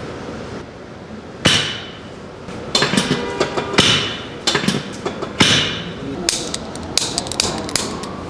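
Chiropractic adjustment: a series of sharp clacks, some single and some in quick pairs, starting about one and a half seconds in. They come from the drop-piece adjusting table snapping down and the handheld activator instrument clicking.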